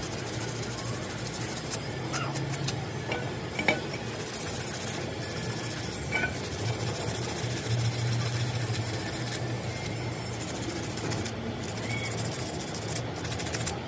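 A brush scrubbing back and forth along the teeth of a steel helical gear, in many short scratchy strokes, over a steady low hum, with one sharp click a few seconds in.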